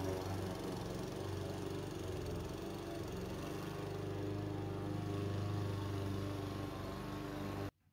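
Craftsman M270 159 cc gas walk-behind mower running steadily at cutting speed while being pushed across grass; the sound cuts off suddenly near the end.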